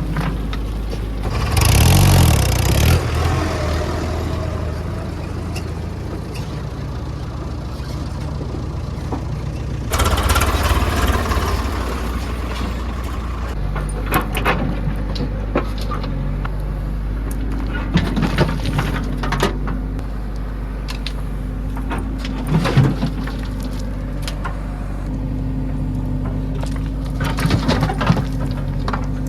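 JCB 3DX backhoe loader's diesel engine running under load, revving up hard about two seconds in and again about ten seconds in, with scattered clunks and knocks from the working machine.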